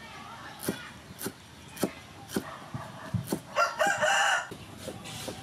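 Cleaver chopping stalks on a wooden cutting board, a sharp stroke roughly every half second. A rooster crows once near the end, about a second long and louder than the chopping.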